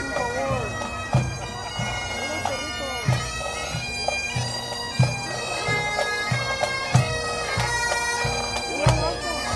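Pipe band playing on the march: Highland bagpipes sound a steady drone under the chanter melody, with marching drums and a bass drum beating about once a second.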